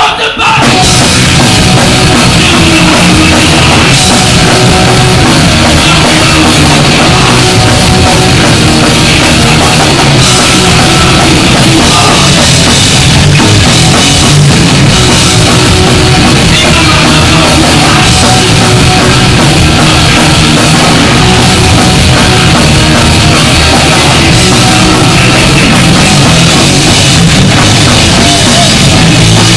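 Live punk band playing a fast, loud song at full volume: drum kit with distorted electric guitar and bass. The band comes crashing in right at the start, then plays without a break.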